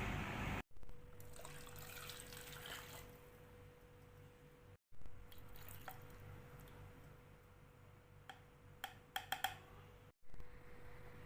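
Faint kitchen sounds of liquid being poured or dripping, then a short run of quick clinks about two-thirds of the way through, over a faint steady hum.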